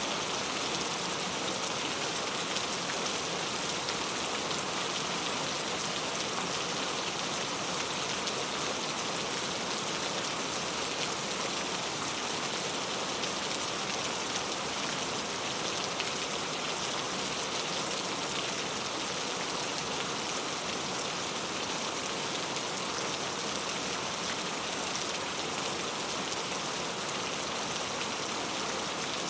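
Steady rain: a continuous, even hiss of rainfall with fine pattering drops.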